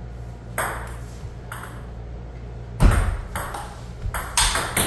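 Table tennis rally: the ball clicking off rubber paddles and bouncing on a STAG table, the clicks coming faster in the second half, with one heavier thump about three seconds in.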